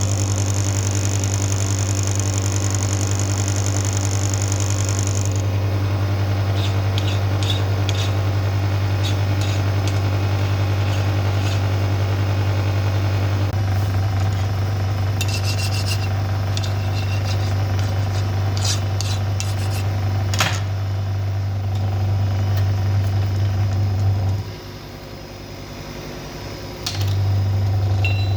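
Electric motor of a connecting-rod cap cutter running with a steady hum. A fine high hiss of cutting metal sounds for the first few seconds, then come scattered metal clicks and clinks of the rod being handled. The motor shuts off about 24 seconds in and starts again near the end.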